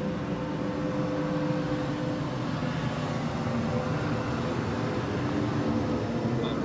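Engine of a trash-collection vehicle, a wheeled loader-type tractor with a front bucket, running steadily with a low hum and a couple of steady tones.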